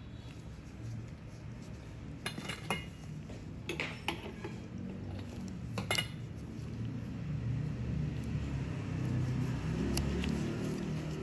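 Small steel instruments clinking a few times, about two to four seconds in and again at about six seconds, over a low steady background rumble that grows a little louder near the end.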